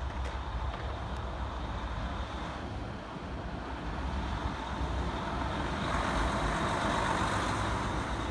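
A track-maintenance dump truck running along the railway track with a steady engine rumble. It grows louder about halfway through and is loudest near the end as it passes.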